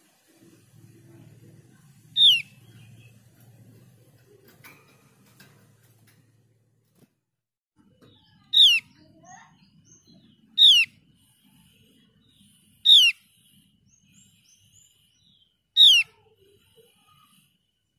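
Javan grey-throated white-eye calling: five short, sharp notes, each sliding down in pitch, spaced a few seconds apart.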